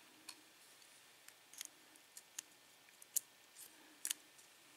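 Faint, scattered light metallic clicks and ticks, about eight in all, the sharpest a little after three seconds and again around four seconds: small lock pins and tools being handled while a padlock core is taken apart.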